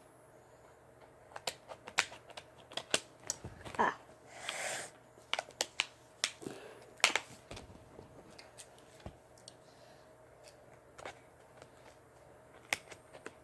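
Toy packaging being opened by hand: a string of sharp clicks and snaps with a short rustle about four seconds in, then a few scattered clicks.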